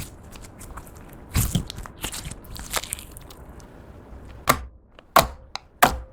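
Clear slime being kneaded and squished by hand, with sticky crackling, then three sharp pops near the end.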